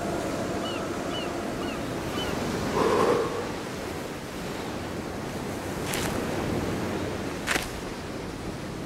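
Sea waves washing onto a pebble shore with wind, one wave swelling louder about three seconds in. Four faint short high chirps sound near the start and two sharp ticks come later.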